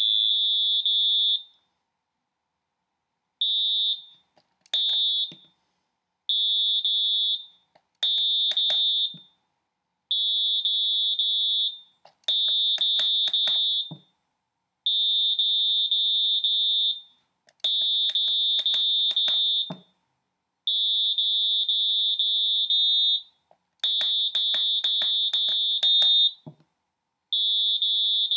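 Piezo buzzer of an Arduino Simon memory game beeping runs of short, high tones. The runs alternate between the game playing its sequence and the player repeating it, with the clicks of the buttons being pressed. Each round is a little longer than the one before.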